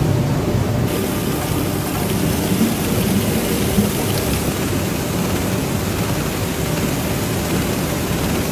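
Steady din of potato-chip processing machinery with running water, from a washer and slicing line; a brighter hiss comes in about a second in.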